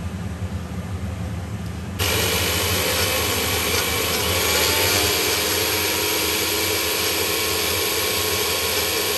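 Small electric spice grinder running steadily under hand pressure, grinding chopped garlic into a paste. It starts abruptly about two seconds in and stops just before the end.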